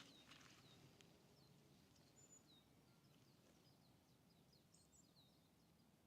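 Near silence: faint outdoor ambience with scattered, thin chirps of small birds.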